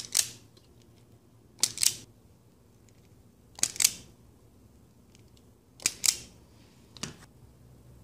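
Wire strippers cutting and stripping the insulation off an AC adapter cord's thin wires: four short sharp snips about two seconds apart, each in two quick parts, and a lighter click near the end.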